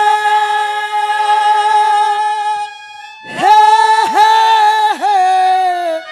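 A ragni singer's voice holding long, wordless opening notes, each starting with a quick swoop in pitch, with a short pause about three seconds in before the next phrase.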